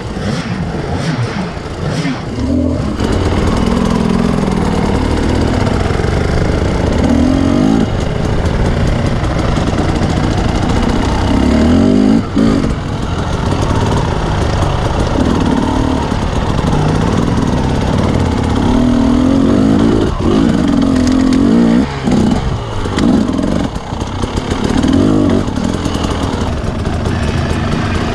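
Husqvarna enduro dirt bike engine revving, its pitch rising and falling over and over with the throttle, with a few brief cuts in the second half.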